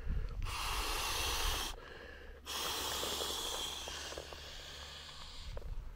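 Two long breaths blown by mouth into the one-way valve of a Trekology Aluft inflatable camping pillow, each a rushing hiss of air; the second is longer and fades out.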